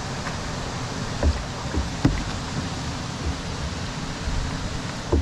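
Steady rush of a small waterfall and wind over the water. A canoe paddle knocks and splashes several times.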